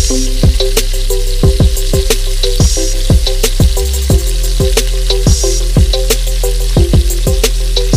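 Instrumental background music with a steady drum beat and sustained bass. Beneath it, saucy chicken and peppers sizzle in a pan as a spatula stirs them.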